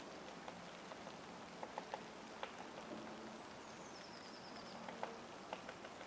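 Scattered light ticks and taps at uneven intervals over a faint steady hiss, with a short run of quick, high-pitched bird notes about four seconds in.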